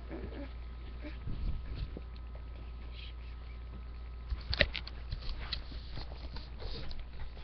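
Knocks, bumps and rustling from a webcam being handled close to its microphone, over a steady low hum. A scattering of taps comes about a second in, then a denser run of knocks after about four seconds, with the sharpest knock near the middle of that run.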